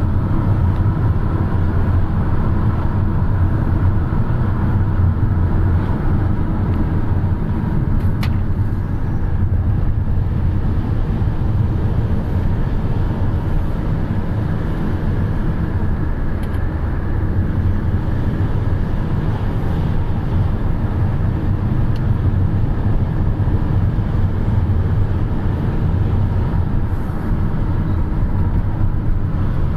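Steady low rumble of motor vehicles, with a single brief click about eight seconds in.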